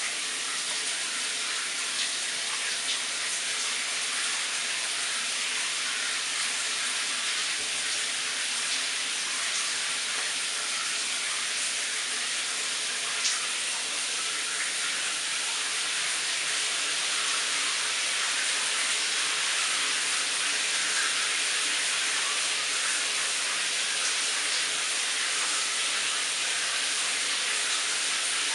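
A shower running: water spraying down steadily onto a tiled shower stall, an even hiss with a few light ticks of drops.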